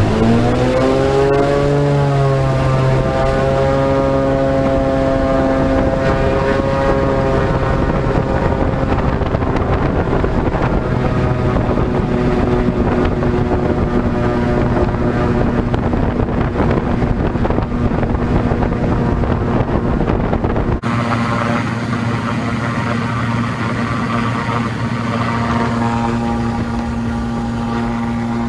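Lake Renegade amphibian's pylon-mounted six-cylinder pusher engine and propeller, rising in pitch as it is brought up to power over the first two seconds, then running steadily at high power as the flying boat runs fast across the water. About two-thirds of the way through the sound changes abruptly to the view from out by the wing float, where the engine still runs steadily.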